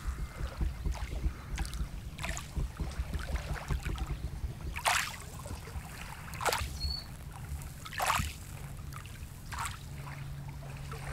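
Small lake waves lapping onto a pebble shore, each one a short soft splash at irregular intervals of a second or two, over a low steady rumble of wind on the microphone.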